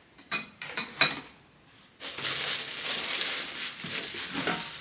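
A few light metallic clinks of stainless steel cookware in the first second, then steady crinkling and rustling of packaging that starts suddenly about two seconds in.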